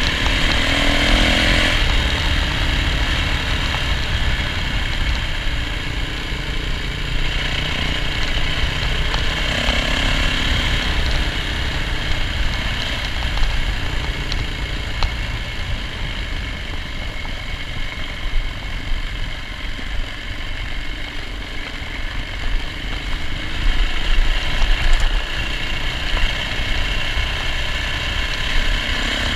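Yamaha dirt bike engine running under way on a dirt road, its note rising and falling, over a heavy low rumble. A few sharp knocks near the end.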